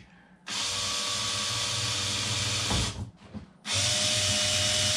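Cordless drill boring pilot holes into sled runner strips, running steadily in two runs: the first ends in a short knock just under three seconds in, and after a brief pause the second starts near the end.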